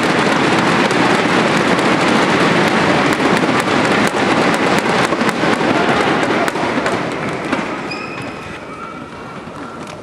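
Hall crowd cheering and beating inflatable clapper sticks (thunder sticks) together in a dense, rapid clatter, dying down about seven seconds in.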